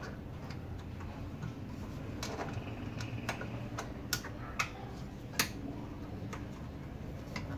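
Hands handling a car's air filter housing and its clips: a handful of sharp, irregular clicks and snaps, the loudest a little past the middle, over a steady low background hum.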